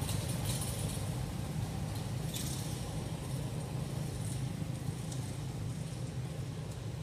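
Steady low outdoor rumble, with a couple of faint brief rustles about half a second and two and a half seconds in.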